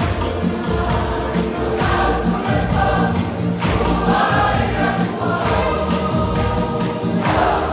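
Choir of many voices singing a gospel hymn over instrumental backing with a steady bass and beat.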